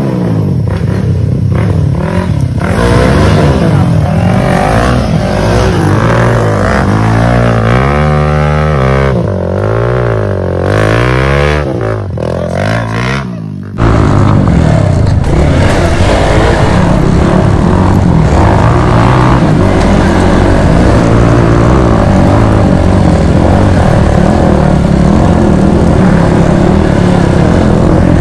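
Off-road motorcycle engine revving up and down as the bike works along a muddy dirt trail. About 14 seconds in, the sound cuts to an onboard recording of the engine running steadily, louder, under a constant rush of noise.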